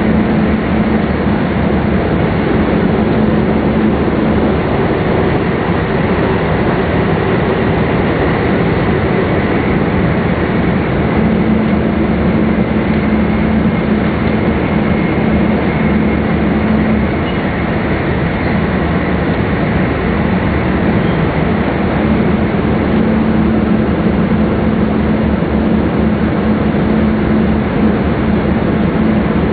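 Steady running noise of a double-deck MAX Shinkansen at speed, heard inside the upper-deck cabin: a constant rumble and hiss, with a low drone that fades and returns several times.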